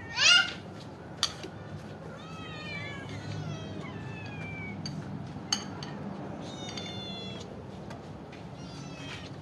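Several cats and kittens meowing for food as they crowd in to be fed: one loud falling meow right at the start, then overlapping meows in the middle and again near the end. A few sharp clicks fall between the calls.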